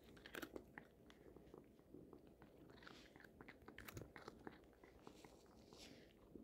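Black cat chewing dry Temptations cat treats, faint irregular crunches close by, ending with one sharper, louder click.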